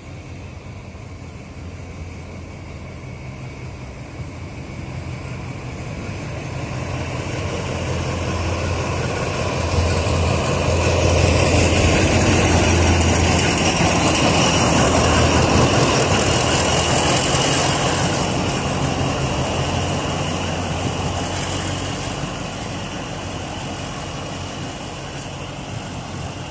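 A freight train passing close by: the locomotive's engine hum and the rumble of the wagons swell to a peak about halfway through, then fade as the train goes away.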